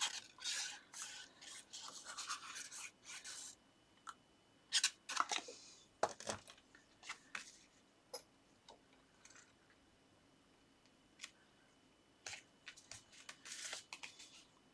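Paper and card being handled and fixed onto a card base: faint scratchy rubbing for the first few seconds, then scattered light taps and rustles with quiet gaps between.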